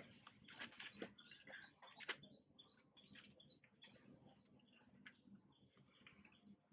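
Faint, short high-pitched animal chirps repeating through the second half, over scattered light clicks.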